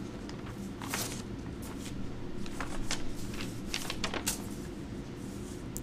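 Faint rustling and scattered light clicks over a steady low background hum, as of small handling noises near the microphone.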